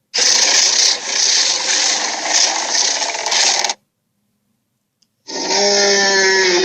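Dragon sound effects: a harsh, raspy hissing roar of about three and a half seconds that pulses a few times a second and cuts off. After a short silence a second, deeper roar with a held growling pitch starts about five seconds in.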